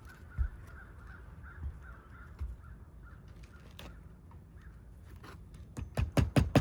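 A crow cawing in short, quick repeated calls for the first few seconds. Near the end, rapid sharp knocks begin, about five a second, from nailing work on a shingle roof.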